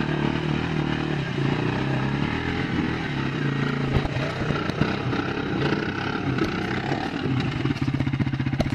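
Quad bike (ATV) engine running at low speed, with a few sharp knocks and clatters. Near the end the engine settles into an even, pulsing low-rev beat.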